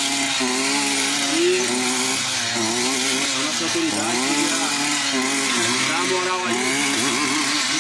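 A man talking, over a steady background noise.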